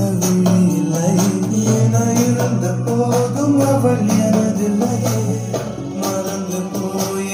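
A Tamil film song playing through a speaker box with a woofer and tweeter, driven by a TPA3110 class D amplifier board. The passage has sustained instrumental notes over a steady beat with jingling percussion.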